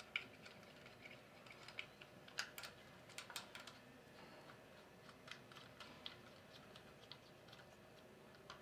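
Faint, irregular light clicks and ticks of small terminal nuts and insulators being handled and run down finger-tight on the terminal studs of a Carrier 06E compressor.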